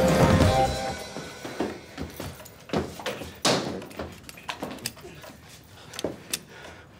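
Music ending about a second in, then scattered thumps and knocks from people scuffling and moving about, the loudest about three and a half seconds in.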